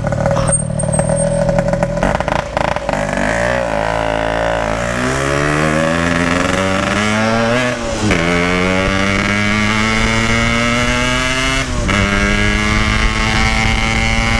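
Yamaha RX-King's single-cylinder two-stroke engine, through a standard-style Packing Power exhaust, accelerating hard through the gears while riding. It holds steady revs at first, then rises in pitch, dropping with an upshift about halfway through and again near the end before climbing again.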